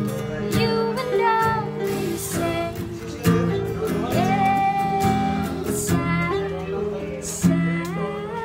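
A woman singing to her own acoustic guitar strumming, with a ukulele played alongside. She holds one long note in the middle.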